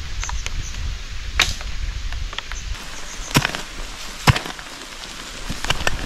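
A few sharp, irregularly spaced knocks of wood being chopped or struck, over a steady hiss.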